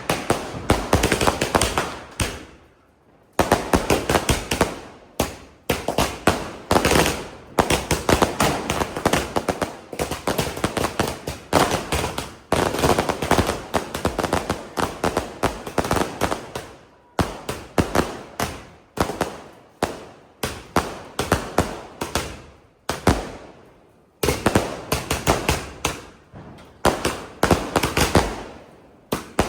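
A 30-shot aerial fireworks cake firing: a rapid string of launch thumps and bursting bangs with crackle, with brief lulls about three seconds in and again about 23 seconds in.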